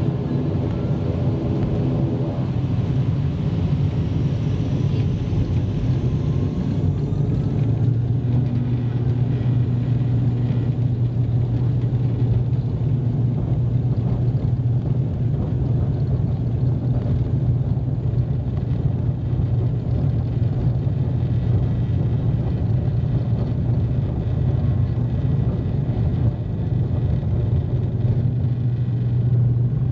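ATR 42-500's Pratt & Whitney PW127 turboprops and six-bladed propellers at takeoff power during the takeoff roll, heard from inside the cabin: a loud, steady, low propeller drone over the rumble of the wheels on the runway. A faint rising whine comes in during the first few seconds, and the drone grows stronger after that.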